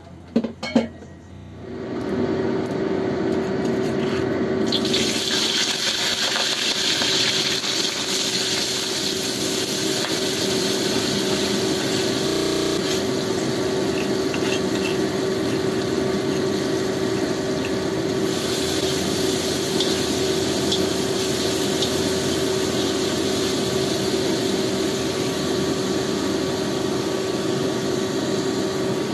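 Freshly ground chilli spice paste sizzling in hot oil in a wok. The frying sets in about two seconds in and stays loud and steady, after a few light clinks.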